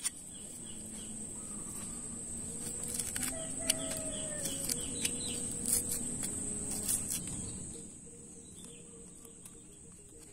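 Knife blade scraping and clicking against a root tuber as its skin is peeled off, in a few sharp clicks. A rooster crows faintly, and a steady high insect whine runs behind.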